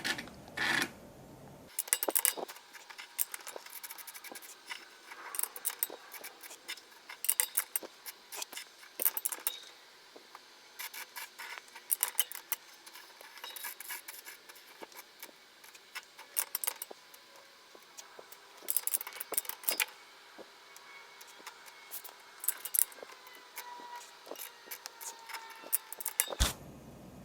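Bicycle wheel being trued on a truing stand, fast-forwarded: a rapid, irregular scatter of small metallic clicks and rattles from the spoke wrench and the spinning wheel.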